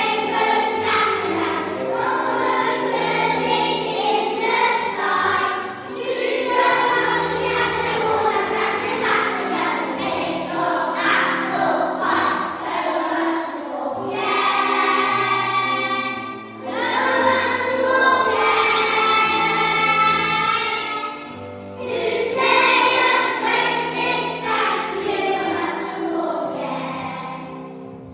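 A choir singing music with long held notes over a low stepping bass line, the phrase softening near the end.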